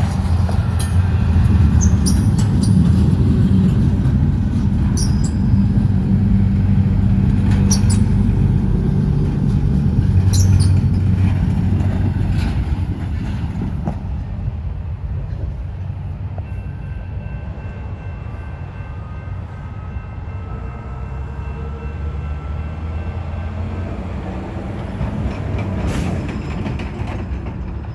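Intermodal freight train rolling past: a loud low rumble of wheels on rail with scattered sharp clicks. About halfway through the rumble drops to a quieter, more distant rolling sound with faint thin squeals from the wheels.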